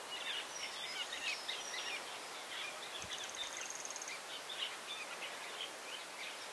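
Small birds chirping and twittering in many short overlapping calls, with a brief fast high trill about three seconds in, over a light steady hiss.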